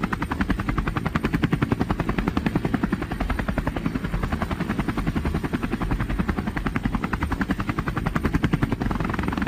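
Helicopter rotor blades beating in a fast, even rhythm as the helicopter flies. The sound cuts in and out abruptly.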